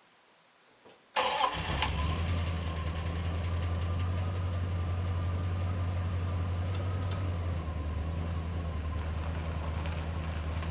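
318 V8 of a 1989 Dodge D200 pickup fires up about a second in and settles into a steady idle.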